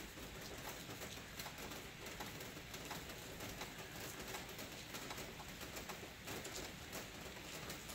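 Heavy rain falling steadily on a flooded street, an even hiss dotted with small drop ticks, with a bird calling in the background.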